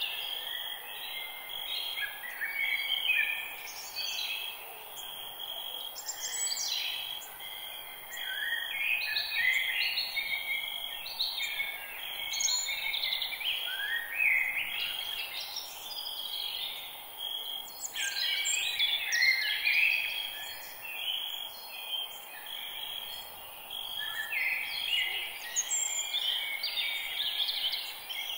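Forest ambience of several songbirds singing, overlapping warbling and chirping phrases that come in clusters every few seconds, over a steady faint background hiss.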